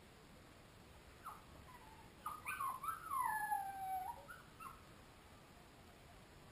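Samoyed puppy whimpering: a few short high whines, then one longer whine that slides down in pitch, over about three seconds.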